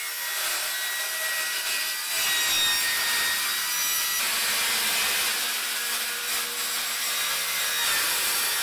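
Circular saw with its blade mounted backwards cutting through a metal roof panel: a steady, mostly high-pitched cutting noise, with the saw cutting smoothly.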